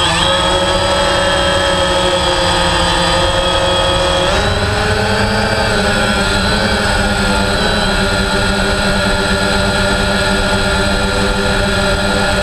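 DJI Phantom 3 quadcopter's electric motors and propellers in flight, a loud steady whine of several tones that shift in pitch about four seconds in as the motor speeds change.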